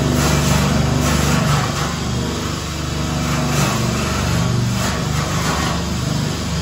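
An engine running steadily with a hiss over it, its pitch shifting slightly.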